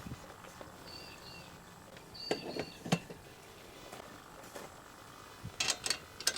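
Metal frame pieces and fittings being handled during assembly: a few light clicks and knocks, a pair of them about two and a half seconds in and a quick cluster near the end, over a low background with faint short high chirps.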